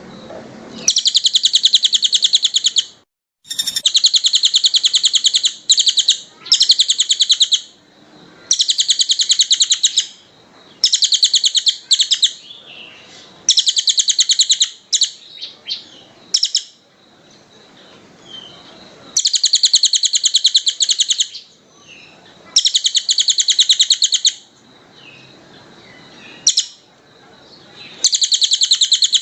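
Songbird masteran recording of fast, tightly packed trills: high, very rapid phrases of about one to two seconds each, repeated over and over with short pauses between them.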